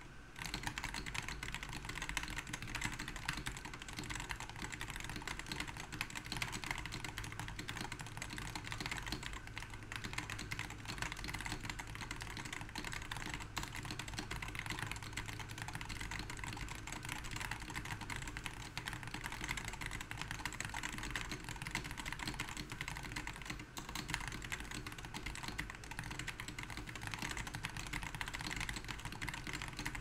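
Very fast, continuous typing on a Wooting Two "Lekker" Edition keyboard with linear Hall-effect (magnetic) analog switches: a dense, unbroken stream of keystrokes at around 150 words per minute, starting about half a second in.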